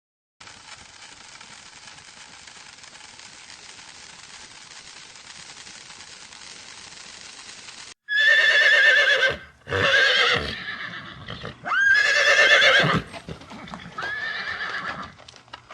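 A horse whinnying four times in quick succession; each neigh is loud, shaky and high-pitched and trails off at the end. A steady faint hiss fills the first half before the whinnies begin.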